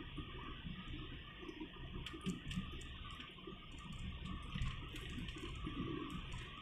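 Faint steady road and engine noise inside a moving car's cabin, with light irregular clicking from about two seconds in.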